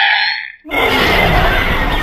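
Designed kaiju creature calls, mixed from Velociraptor, Giganotosaurus, MUTO and Godzilla sounds: a high screech fades out about half a second in, then after a brief gap a new, lower and rougher call starts and holds.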